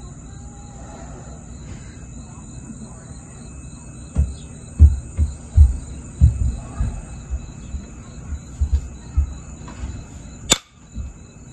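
Low, dull thumps of handling as a copper-tipped pressure flaker is worked against the edge of a jasper preform, then near the end one sharp click as a flake pops off the stone.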